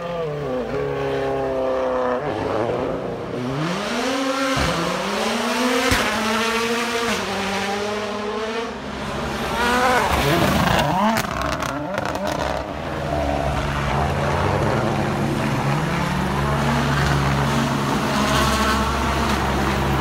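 Rally car's turbocharged four-cylinder engine revving hard and shifting through the gears, its pitch sweeping up and down repeatedly, with a few sharp pops around the middle. A steadier low engine drone holds in the last several seconds.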